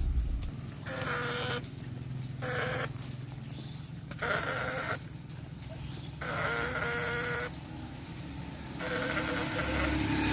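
An animal calling repeatedly: about five bleat-like calls, each under a second to just over a second long, a second or two apart, over a steady low background.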